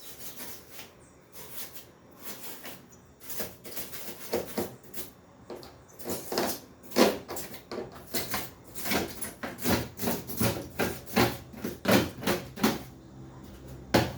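Refrigerator cabinet being opened up with tools to reach the capillary tube: a rapid run of short scraping and cracking strokes, more frequent and louder from about halfway in.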